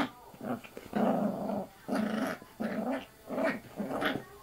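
A puppy growling in short bursts, about one a second, while it play-bites at a person's arm.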